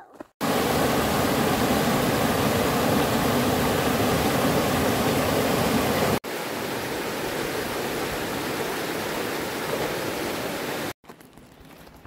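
Rushing mountain creek water tumbling over rocks, a steady even roar. About 6 s in it cuts to a quieter, thinner rush, which stops suddenly about a second before the end.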